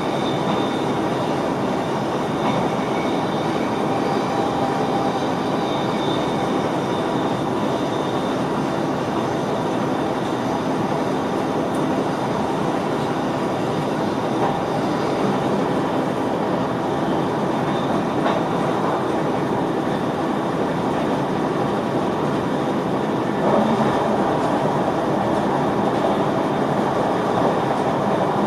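A VIRM double-deck electric train running at speed, heard from inside the driver's cab: a steady rumble of wheels on track, with a faint high whine in the first several seconds. It gets louder about 23 seconds in.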